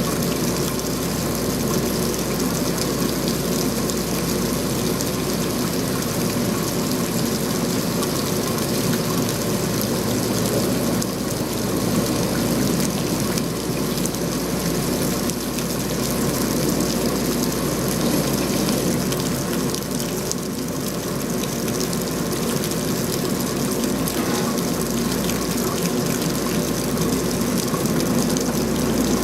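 Steady rain falling, a continuous even hiss of water with no breaks.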